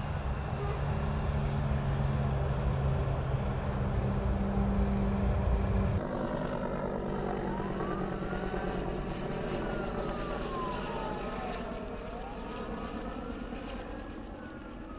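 Heavy vehicle engines running with a steady low hum. About six seconds in the sound changes abruptly to a siren wailing slowly up and down, each rise and fall taking a few seconds.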